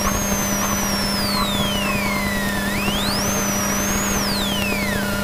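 Rally car heard from inside the cabin at speed: a high whine from the car drops steeply in pitch as it slows, climbs again for about a second as it picks up speed, then drops once more near the end, over steady engine and road noise and a constant low hum.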